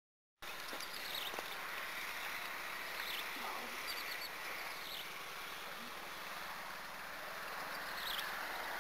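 Steady outdoor background hiss, with about five short, high, falling chirps scattered through it.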